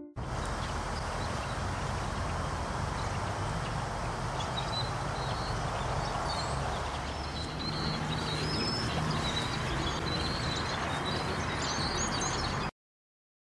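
A flock of rusty blackbirds calling from a tree: short, high, squeaky chirps that grow thicker from about four seconds in, over a steady rushing background noise. The sound cuts off suddenly near the end.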